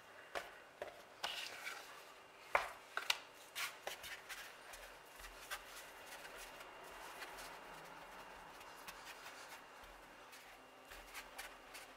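Hands rolling shortcrust pastry dough into thin ropes on a pastry board: a faint, soft rubbing, with a few light knocks and taps in the first few seconds.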